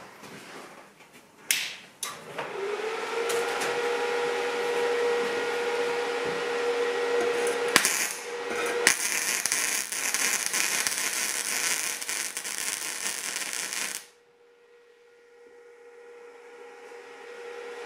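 MIG welder (Stahlwerk MIG 135 M IGBT) striking an arc on steel plate: two sharp clicks, then about twelve seconds of steady arc crackle and spatter that cuts off suddenly. The weld runs without shielding gas reaching the torch. A steady hum from the machine stays on after the arc stops.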